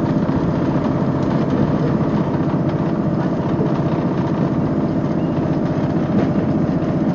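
A train's diesel engine running with a steady low drone, heard from inside the carriage.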